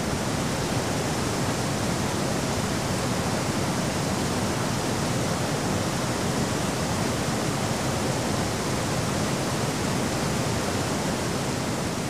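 Waterfall pouring through a narrow rock canyon: a steady roar of rushing, foaming water that does not let up.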